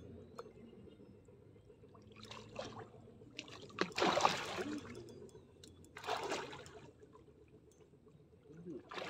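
A large hooked fish thrashing at the water's surface close to the bank, splashing in three bursts, the loudest about four seconds in.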